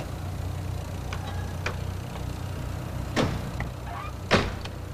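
Two sharp bangs about a second apart, near the end: the doors of a military Land Rover being shut. A steady low hum runs underneath.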